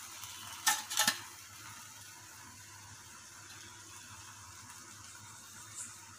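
Egg-in-bread frying on a tawa, giving a faint, steady sizzle. Two short clicks about a second in are the loudest sounds.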